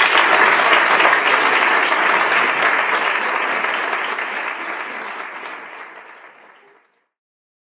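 Audience applauding, the clapping fading out about seven seconds in.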